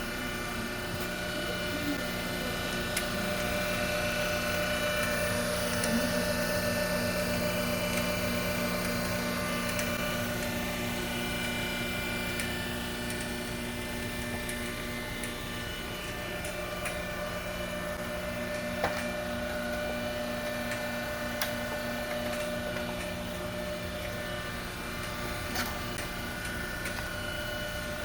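Monarch EE turret lathe running: a steady hum and whine, with a few sharp clicks in the second half.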